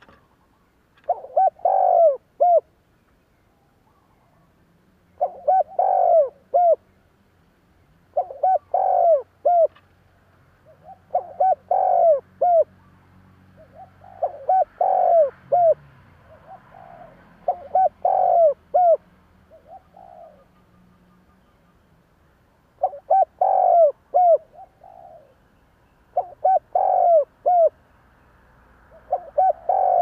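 Spotted dove cooing: about nine phrases, each a quick run of several coo notes, repeated roughly every three seconds.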